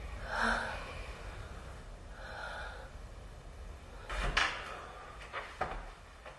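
Two short breathy gasps from a person, then a few sharp knocks and clatters, the loudest about four seconds in.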